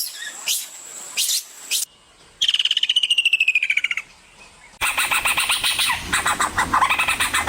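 Bird calls in three short segments, each starting and stopping suddenly: quick chirps, then a fast trill falling slightly in pitch, then dense rapid chattering.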